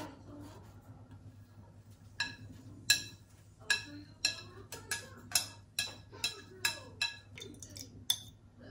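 A run of sharp clicks and clinks of kitchen utensils, about two a second, starting about two seconds in, each with a short ringing tone. A faint steady hum lies underneath.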